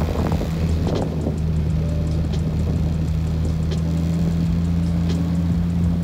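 Outboard motor of a small aluminum boat running at a steady speed under way, a constant low drone with a few faint clicks from the hull.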